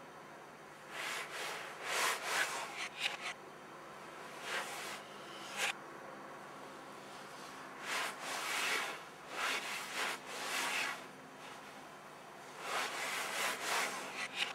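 Handling noise: scratchy rubbing against the camera body close to the microphone, in five irregular bursts of about a second each, over a faint steady hiss.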